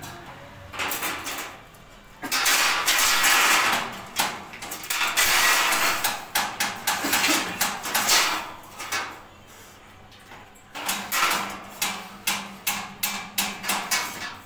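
Steel bars clattering and scraping against a steel frame as they are laid across it and slid into line, in long rattling spells over the first nine seconds. Near the end comes a run of quick sharp metal knocks, several a second, as the bars are tapped into position.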